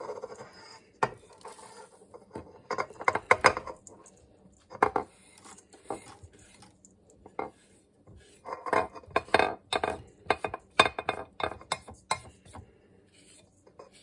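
Glass measuring cup knocking and clinking against a stainless steel mixing bowl as sugar is poured out: irregular short taps and clatters, bunched around three seconds in and again between about eight and eleven seconds.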